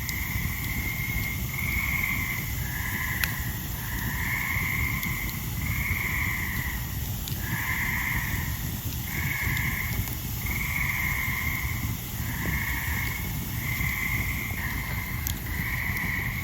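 A chorus of tree frogs calling: overlapping trills, each about a second long, following one another almost without a break. A few sharp pops from a wood campfire come through now and then.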